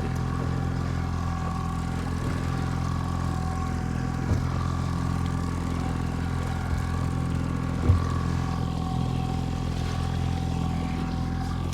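Fishing boat's engine running steadily at trolling speed, a constant even drone, with two short knocks on the boat about four and eight seconds in.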